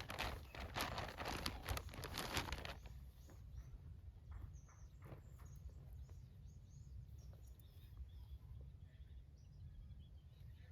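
Rustling and handling noise for the first few seconds. Faint bird chirps follow over a steady low outdoor rumble.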